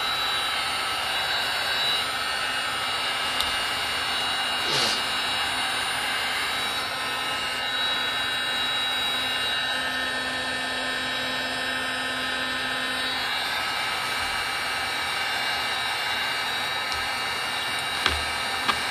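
Milwaukee M18 cordless heat gun blowing steadily, a constant rush of fan and hot air, heating a decal's adhesive to loosen it for peeling. Two sharp clicks near the end.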